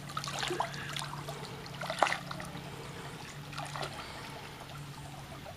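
Pool water splashing and trickling as a toddler kicks her feet while held up in the water, with a sharper splash about two seconds in.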